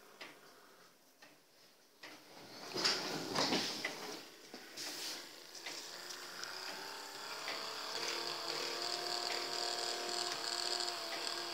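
A K'nex fairground-ride model's small 12 V electric motors driving its plastic gear trains. A few short plastic clicks and rattles come first, then from about six seconds in a steady whir with a held whine that grows louder.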